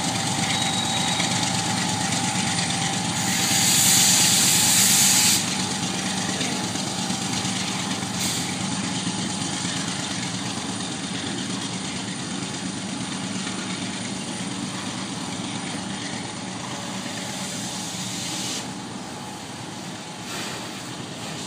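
A long freight train's autorack cars rolling past, a steady rumble and clatter of steel wheels on rail that slowly fades. A louder rushing surge lasts about two seconds, starting a few seconds in.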